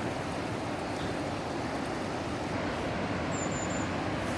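Steady rushing of a mountain river flowing fast through a rocky gorge below.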